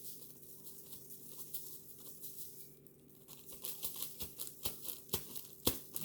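Glitter being shaken out of its container onto slime: a faint rustle, then a run of sharp taps from about three and a half seconds in that comes faster toward the end.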